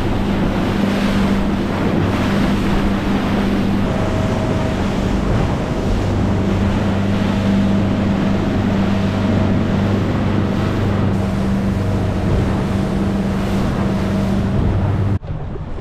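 A small trailer boat under way at speed: the motor drones with a steady low hum, over the rush of water along the hull and wind buffeting the microphone. The sound cuts off abruptly near the end.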